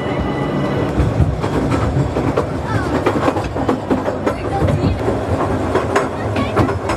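A train running on rails, wheels clattering over the track with irregular clicks and short squeaks.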